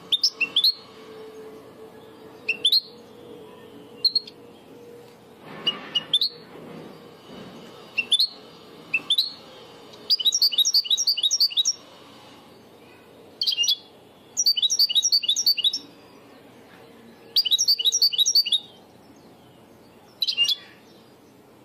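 European goldfinch singing a Levantine ('Shami') song type: sharp rising chirps a second or two apart, then from about halfway rapid runs of rising notes, each run lasting a second or more, with a final single chirp near the end.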